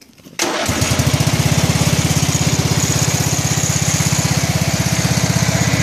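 1987 Sears Craftsman garden tractor's engine starting about half a second in, catching at once, then running steadily with an even, rapid pulse.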